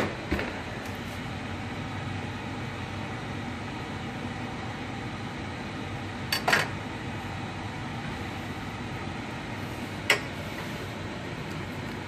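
Steady fan-like kitchen noise, with a few sharp clinks of kitchenware: one at the start, a quick pair about six seconds in and another about ten seconds in.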